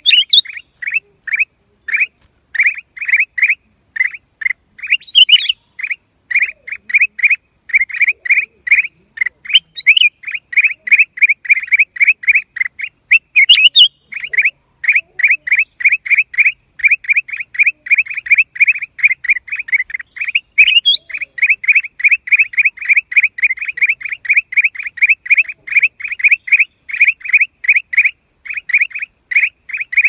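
Black-crested bulbul calling: a long, steady run of short, identical down-slurred notes, about three to four a second, with a few brief pauses. Now and then a sharper, higher note cuts in.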